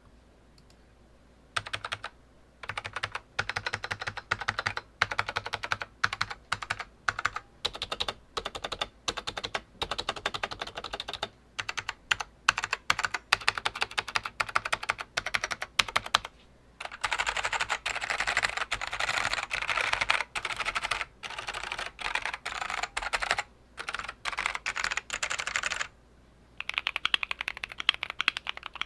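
Typing on a vintage Dell AT101W keyboard with stock Alps SKCM Black tactile switches, in quick runs of key presses broken by short pauses, after a moment of quiet at the start. Near the end there is a brief stop, then typing resumes on a modded Keychron Q1 with Durock T1 tactile switches, sounding duller.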